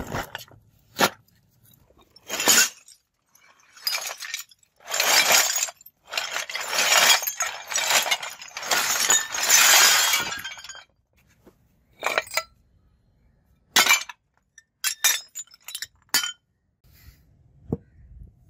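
Scrap aluminium motorbike parts clattering and clinking as they are tipped out of a woven sack onto a heap on concrete. A long tumbling run of metal clatter comes about five to eleven seconds in, with separate clinks and knocks before and after.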